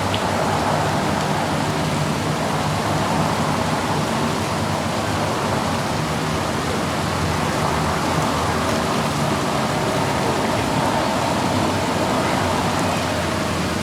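Steady road noise and engine hum inside a moving car's cabin, even and unbroken.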